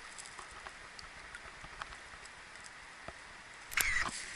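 Steady rush of water flowing over a shallow stream riffle, with a few small clicks, and a short sharp noise near the end that is the loudest sound.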